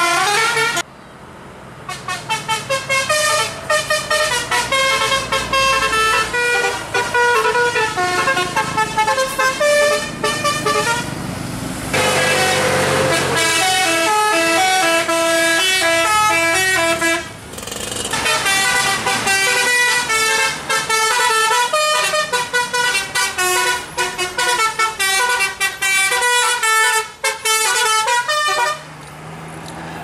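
Bus 'telolet basuri' musical air horns playing quick melodies of stepped notes, several horn tones sounding at once. They play in long runs, with short breaks about twelve and seventeen seconds in, and go quieter near the end.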